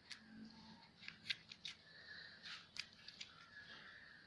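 Faint handling of Kinder Joy egg packaging: a scattered series of about eight light clicks and crinkles.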